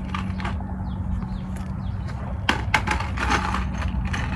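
Light clicks and knocks of a plastic splash guard being handled and fitted against the wheel-well trim, sharpest a little past halfway through. A steady low hum runs underneath.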